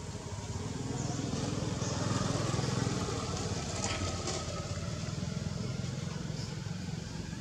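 Engine of a passing motor vehicle, a low hum that swells about two seconds in and then fades.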